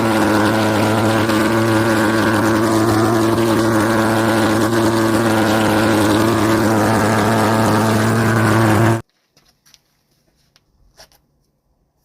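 Jet engine mounted on a bicycle running at a steady loud drone with a strong buzzing pitch, then cutting off abruptly about nine seconds in, leaving near silence with a few faint clicks.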